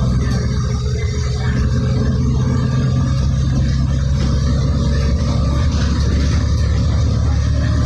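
City transit bus engine and road noise heard from inside the passenger cabin: a steady low rumble.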